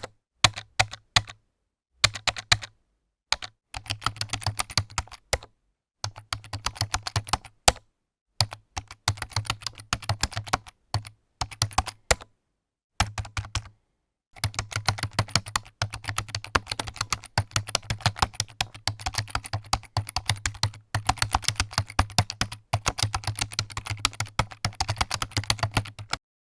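Typing on a computer keyboard: rapid runs of key clicks in bursts of a few seconds, with short pauses between them, then the typing stops near the end.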